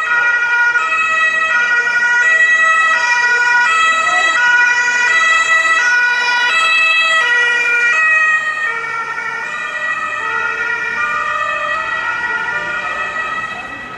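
German ambulance's two-tone Martinshorn siren (tatütata) sounding as the vehicle drives past on an emergency run, its two notes alternating about every 0.7 seconds. About eight seconds in it gets quieter and slightly lower in pitch as it moves away.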